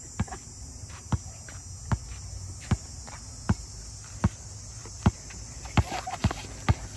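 Basketball dribbled on a hard outdoor court: about ten sharp bounces at a steady pace of a little more than one a second, coming faster near the end as the dribbler drives to the basket.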